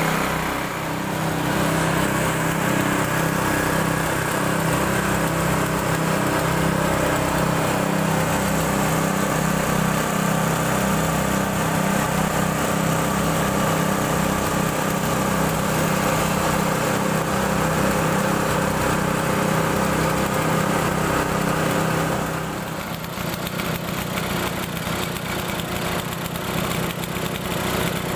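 Small petrol engine of a portable well-drilling rig running steadily and powering the drill and water circulation. About 22 seconds in the engine note eases and the sound turns rougher, with a clattering rattle.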